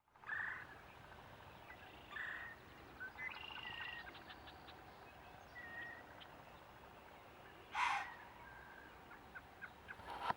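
A deer blowing a single sharp, breathy snort about eight seconds in, the opening of a snort-wheeze, a buck's aggressive threat call. Short, high bird calls sound on and off around it.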